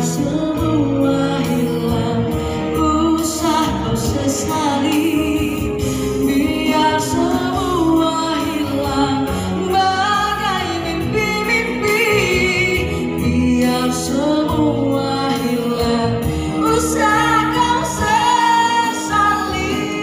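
A woman singing a song into a handheld microphone over backing music, amplified through a PA system.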